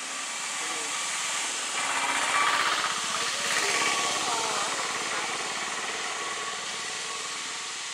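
An engine running close by over a steady hiss, swelling about two seconds in and easing off after four seconds.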